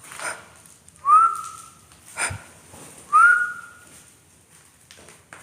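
A short whistled note that swoops up and then holds steady, repeated about every two seconds, with brief rustles between the whistles.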